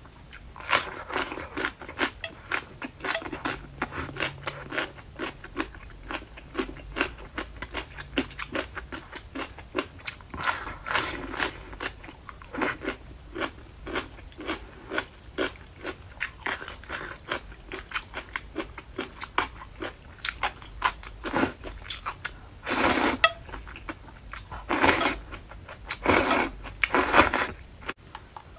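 Close-up crunching and chewing of crisp pickled radish, a rapid run of short crisp crunches. In the last third come a few louder, longer sounds of about half a second each.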